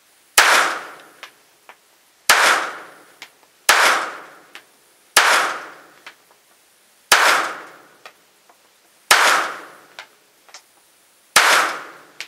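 Seven shots from a .22 rimfire pistol fired slow and aimed, one every one and a half to two seconds, each a sharp crack with a short ringing tail and a fainter click or two after it.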